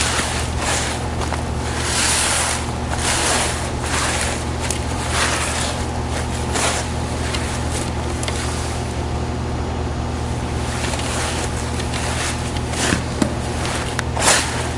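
A steady low engine drone runs throughout. Through the first half it is joined by rhythmic swishing and scraping, about one stroke a second, typical of ash being worked into oily drilling cuttings.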